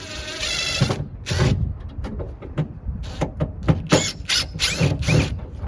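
Tool and metal work noises: a brief power-tool whir, then a string of clicks, knocks and squeaks.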